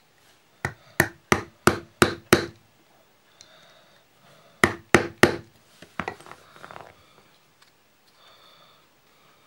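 Soft-faced mallet striking a rivet-setting punch to set a rivet through a leather strap on a metal block: six quick blows about three a second, a pause, then three more, with a couple of lighter taps after.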